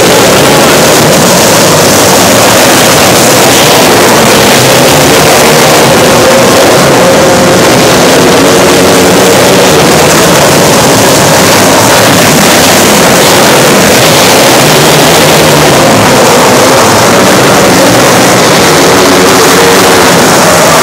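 Several small winged dirt-track race cars racing together, their engines running loud and continuous as the pack laps the dirt oval.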